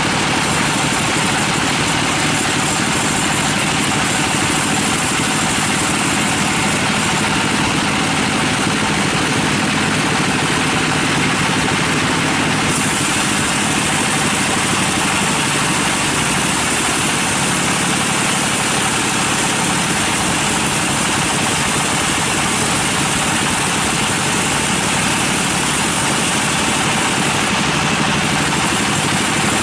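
Log-carriage bandsaw mill running steadily while its blade saws lengthwise through a teak log: a continuous machine drone under the hiss of the blade in the wood.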